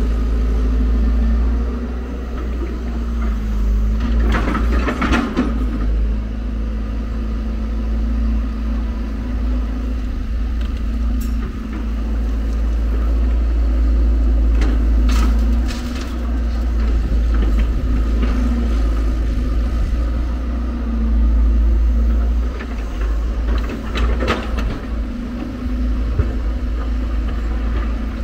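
Hyundai R170W wheeled excavator's diesel engine running steadily under hydraulic load, with a deep rumble and a constant engine note. Louder noisy spells stand out about four to five seconds in, briefly around fifteen seconds, and again about twenty-four seconds in, as the bucket digs the soil and tips it into the dump truck's bed.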